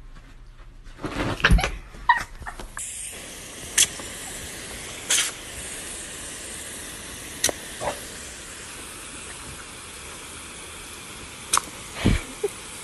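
Garden hose spray nozzle shooting a steady hissing jet of water, starting about three seconds in, with a few sharp clicks over it. Before it comes a short run of loud knocks and thumps.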